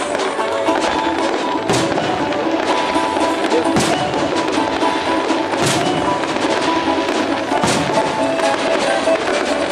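Music of a fireworks show playing steadily, with four sharp cracks about two seconds apart.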